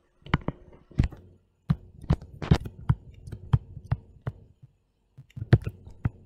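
Stylus tapping and scratching on a tablet screen during handwriting: irregular sharp taps, a few a second, with short scratchy strokes between them and a brief pause a little after the middle.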